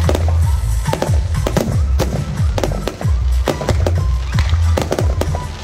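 Fireworks display: shells bursting in quick succession, several sharp bangs and crackles a second, over music with a steady bass.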